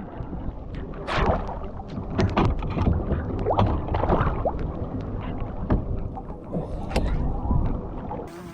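Water splashing and slapping against the hull of a small O'Day sailboat under way, with scattered knocks and a few short squeaks from the boat.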